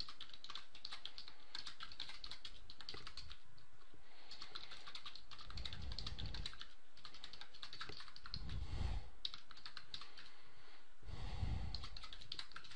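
Typing on a computer keyboard: a rapid, continuous run of key clicks.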